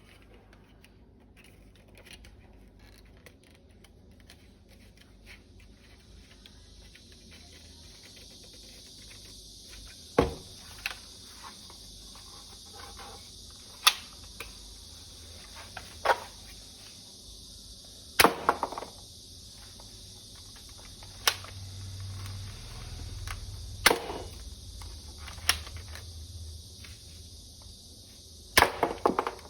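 Toy M416 assault rifle firing single shots: sharp snaps every two to three seconds, about ten in all, starting about a third of the way in. Before them come faint clicks of handling, and a steady high hiss sits under the shots.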